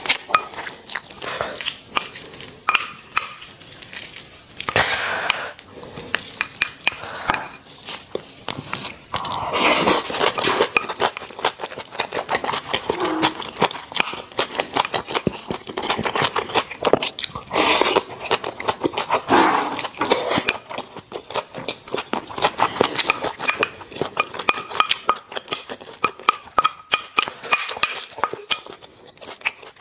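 A wooden spoon scraping and clinking against a glass bowl as rice is scooped up, with close-miked chewing and mouth sounds. The clicks come quickly and unevenly throughout.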